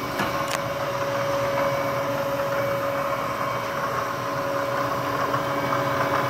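Bridgeport EZ-Trak CNC knee mill running: a steady motor hum with a steady mid-pitched whine that comes in just after a couple of short clicks at the start and then holds level.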